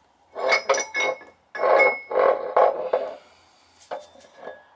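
Splined steel shaft being pulled by hand out of an Allison transmission's cast case: a quick run of metal clinks, then a rough scraping as the shaft slides out, and a couple of light clicks near the end.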